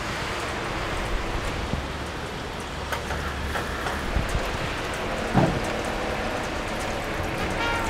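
Steady rain falling on wet pavement, with a few faint clicks and knocks; the loudest knock comes about five and a half seconds in.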